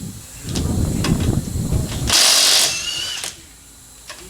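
Pneumatic tool work at a car's wheel: a rattling tool sound, then about two seconds in a half-second burst of hissing compressed air with a thin whistle, then more rattling before it goes quieter.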